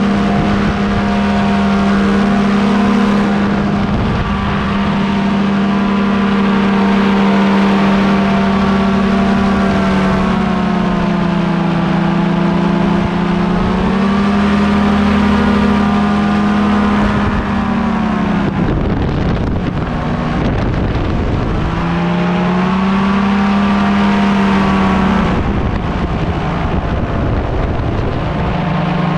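Tandem paramotor's engine and propeller running at high power as it lifts off and climbs, a steady buzzing drone. The pitch sags a little about halfway through, then the note drops away into wind rushing over the microphone for a few seconds before it comes back, weaker near the end.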